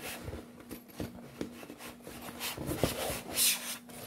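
Synthetic leather bag and its waterproof bagum lining rubbing and crinkling as they are handled and turned right side out, in irregular rustles that are busiest from about two and a half to three and a half seconds in.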